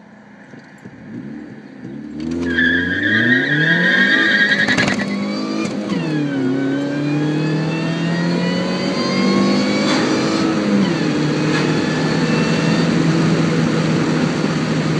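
2004 Saturn Ion Redline's supercharged 2.0-litre four-cylinder accelerating hard, heard from inside the cabin. After a quiet start the revs climb, drop at an upshift about five seconds in, climb again, then drop at a second shift near eleven seconds and hold steady. A steady high squeal runs through the first climb.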